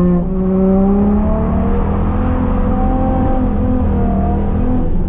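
Holden VY Commodore Calais engine running hard under throttle, its pitch held high and stepping up and down a few times as the revs change.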